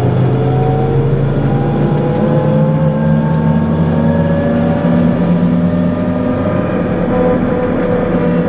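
MRAP armoured vehicle's diesel engine and drivetrain running under way, heard from inside the cabin: a steady low drone with a whine that slowly rises in pitch.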